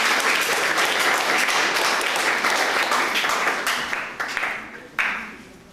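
Audience applauding, the clapping dying away about four seconds in, with a last clap near the end.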